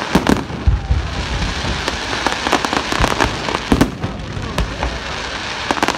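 Fireworks display: aerial shells bursting one after another in quick succession, with a continuous crackle between the bangs.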